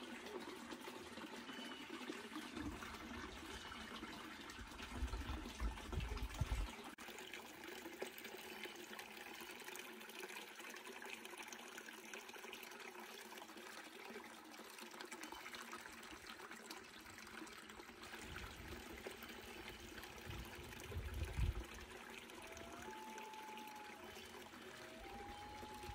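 A small rocky brook trickling steadily. Two low rumbles come through, a few seconds in and again past the middle, and a few faint short calls are heard near the end.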